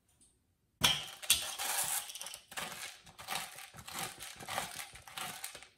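Hand-held pepper grinder twisted over a bowl, grinding black peppercorns: a rapid, uneven run of gritty crackling clicks that starts sharply about a second in.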